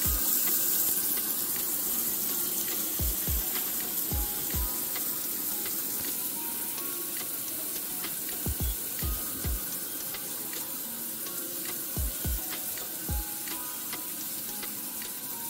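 Steady hiss of water raining down from a copper rain shower head, under background music with deep, irregular kick-drum beats and a few short melodic notes.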